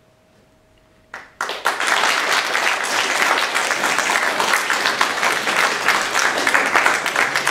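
Audience applauding: after a hush, a clap or two about a second in, then the whole audience breaks into dense, steady applause.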